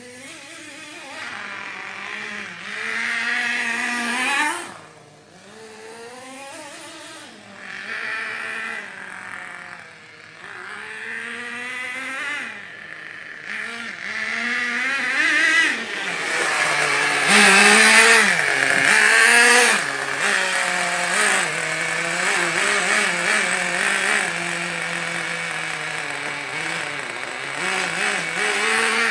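Small glow-fuel (nitro) engine of a radio-controlled buggy running and revving, its pitch rising and falling over and over as the car drives about. It grows louder from about halfway in as the car comes close.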